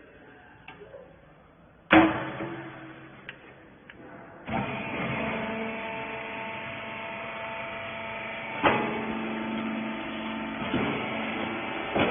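A loud metallic bang about two seconds in, then a cotton wiper-rag baler's machinery starts about two seconds later and runs with a steady multi-tone hum, with two more sharp knocks, one near the middle and one near the end.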